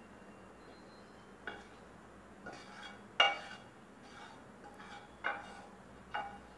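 A spatula knocking and scraping against a non-stick pan and a steel mixer jar as sautéed onion-tomato masala is tipped into the jar. There are about five sharp clinks with a short ring, the loudest about three seconds in.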